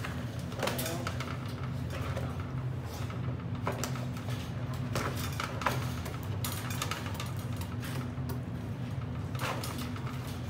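Chain-link kennel fence rattling and clinking in short, irregular clicks as a dog stands with its paws up on it, over a steady low hum.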